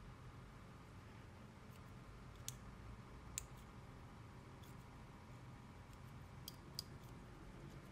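Near silence with four faint, sharp clicks, the last two close together near the end, from a plastic tatting shuttle and thread being handled as double stitches are tied.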